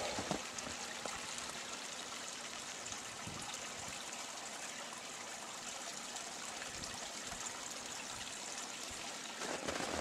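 Steady, even hiss of background noise with no distinct sounds in it.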